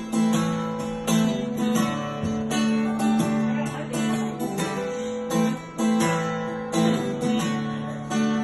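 Guitar strummed in a steady rhythm of chords, with no singing over it.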